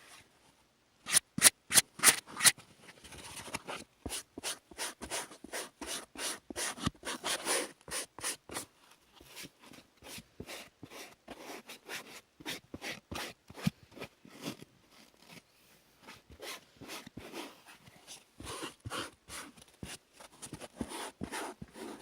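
Close-up scratchy rubbing and scraping strokes of hair being handled against the microphone, a few sharp loud ones at first, then a steady run of about two strokes a second.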